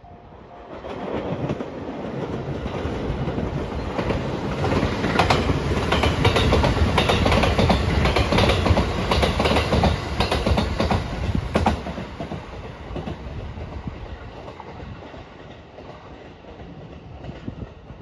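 Rapid Marine Liner electric multiple-unit train passing close by, its wheels clattering over the rail joints. It grows louder over the first few seconds, is loudest in the middle, and fades away after about twelve seconds.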